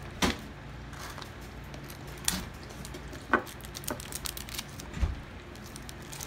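A few scattered light taps and clicks from handling things on a tabletop, over a low steady hum. The last tap, near the end, is duller, like a soft thump.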